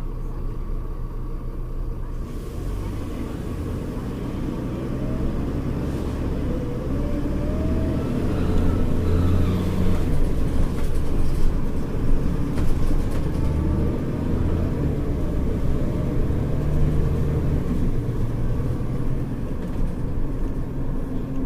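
Mercedes-Benz O-500U city bus's diesel engine pulling away and accelerating through its ZF Ecomat automatic gearbox. The engine note climbs and drops back several times as the gears change, with a faint rising gearbox whine a few seconds in.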